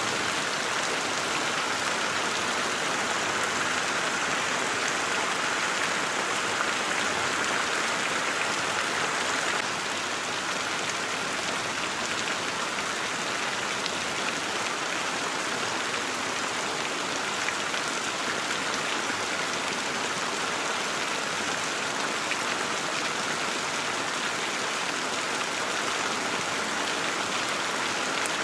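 Heavy rain falling steadily on leaves and ground: a constant, even patter and hiss with no breaks.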